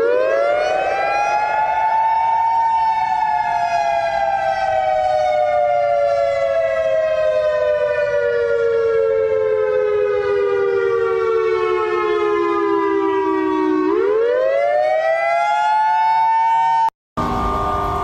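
Civil-defence-style siren wailing with two close pitches sounding together. It rises quickly, then falls slowly for about eleven seconds, rises again, and cuts off abruptly about a second before the end.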